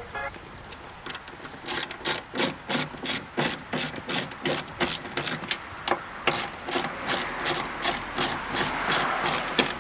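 Hand socket ratchet clicking in short, even strokes, about three a second, starting about a second in, as bolts holding a Miata soft-top frame are run in.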